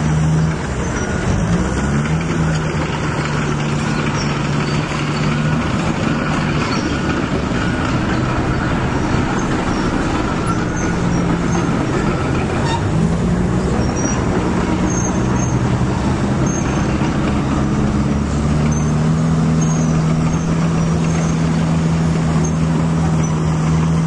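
Construction-machinery engine sound running steadily, its pitch rising and falling as the machines work, with faint light clicks.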